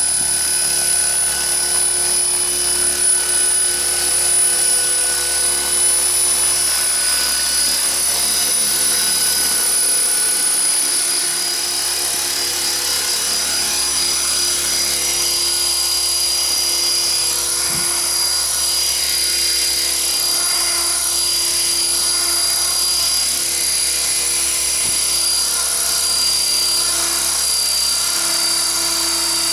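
Small radio-controlled model helicopter in flight: a steady, high-pitched whine of its motor and spinning rotor that wavers slightly in pitch as it moves about.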